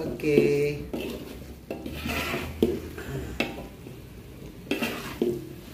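Metal spatula stirring and scraping thick, nearly dry rendang jengkol around a large wok, with several separate scrapes and knocks of metal on the pan.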